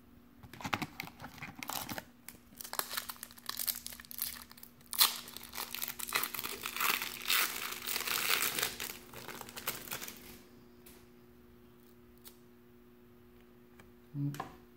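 1993-94 Fleer Ultra trading-card pack wrapper being torn open and crinkled by hand for about ten seconds, then it stops.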